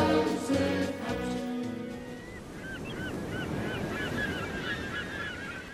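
Choral music ends about two seconds in, followed by many short overlapping bird calls over a steady rushing noise, fading out at the end.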